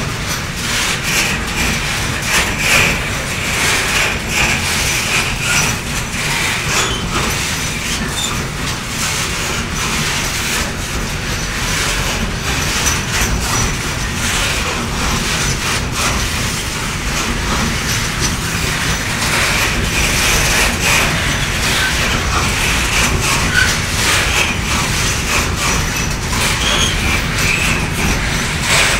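A train running on the track: a steady rumble and hiss with frequent sharp clicks throughout.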